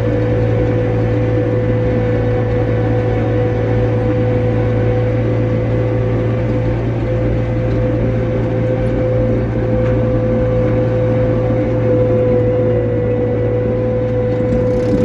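Tractor engine running steadily at constant revs, a deep hum with a steady whine over it.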